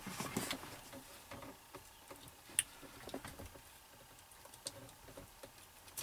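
Faint clicks and rustling of hands handling plastic wiring-harness connectors and wires behind an opened car dashboard, with one sharper click about two and a half seconds in.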